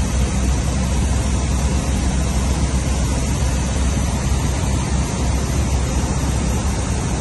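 A Cessna 152's four-cylinder Lycoming piston engine and propeller running steadily in flight, heard inside the cockpit as a constant deep drone with a hiss of airflow over it.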